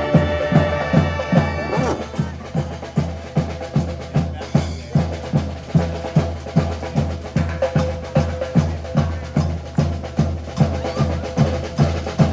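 Street brass band playing: the horns finish a phrase about two seconds in, leaving the drums keeping a steady beat of two to three strokes a second.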